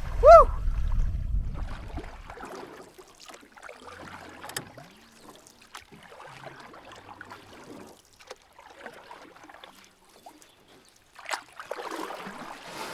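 The soundtrack song ends with a short loud note and its bass dies out about two seconds in. After that comes faint, irregular splashing and sloshing of lake water, with a louder splash near the end.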